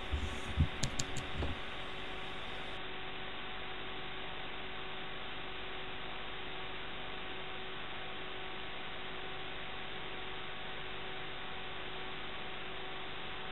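Steady electrical hiss with a constant hum, with a few low knocks in the first second and a half.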